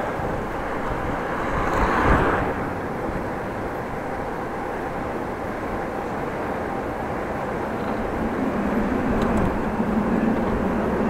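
Wind rushing over the microphone of an action camera on a moving bicycle, with road noise, in gusty wind. It swells briefly about two seconds in, and a low steady hum joins near the end.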